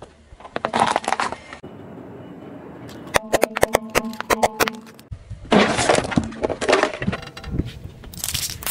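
A car tyre rolling over and crushing small objects: crackly crunching, then a run of sharp clinks with ringing as a row of spoons gives way under the tread, then more crunching. Near the end a sudden loud hiss starts as plastic lighters are crushed and burst.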